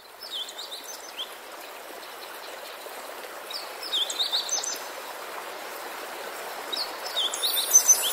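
Nature-ambience recording of flowing water, a steady rushing hiss, with a bird chirping in three short runs of quick falling notes a few seconds apart. It grows gradually louder toward the end.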